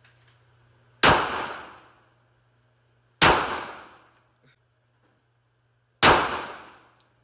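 Three single shots from a 9mm Glock 48 pistol, spaced unevenly about two to three seconds apart, each trailing off in a short echo.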